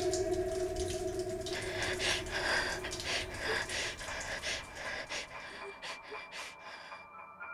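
Horror-film soundtrack: a held low tone dies away, then rustling, breathy noise with a few short gasping breaths, cut off suddenly near the end.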